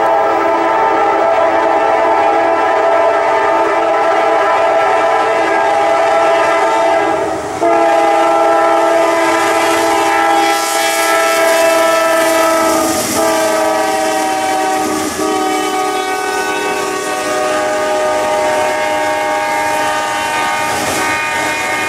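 Lead locomotive of a Norfolk Southern freight train, a GE D9-40CW, sounding its multi-chime air horn in long blasts with short breaks about seven and thirteen seconds in. After about thirteen seconds, as the locomotive goes by, the chord sits slightly lower in pitch. Freight cars roll past on the rails underneath.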